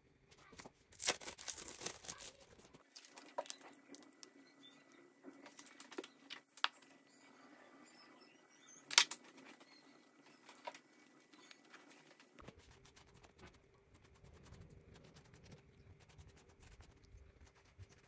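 Faint kitchen food-prep handling sounds: a spell of plastic crinkling and tearing in the first few seconds, then scattered light taps and clicks, the loudest a single sharp click about nine seconds in.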